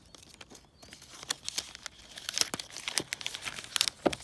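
Clear plastic shrink-wrap being torn and peeled off a new iPhone box, crinkling and crackling, with a knock about four seconds in.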